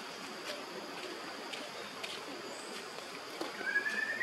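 A macaque gives a thin, high-pitched rising squeal near the end, over a steady background hiss with a few faint clicks.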